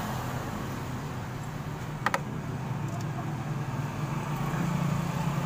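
A steady low mechanical hum in the background. About two seconds in come two or three sharp metallic clicks from a wrench on the rocker-arm adjuster locknut of a motorcycle's opened valve train, during a valve-clearance adjustment.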